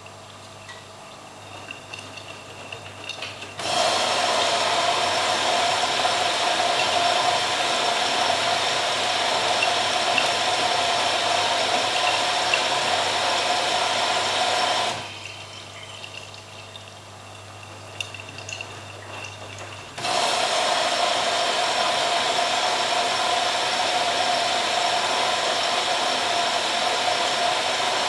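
AEG Lavamat 86760 washing machine taking in water: a steady rush of water into the drum switches on abruptly a few seconds in, cuts off after about eleven seconds, and starts again about five seconds later. A quieter low hum with small clicks fills the gaps.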